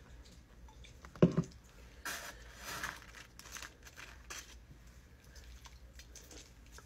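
A single loud thud about a second in, then crinkling, rustling and small clicks as fingers pick through fried chicken gizzards in a foam takeout box.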